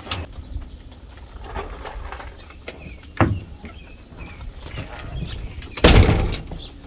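A sharp knock about three seconds in, then a louder clatter near the end, over a low steady outdoor background.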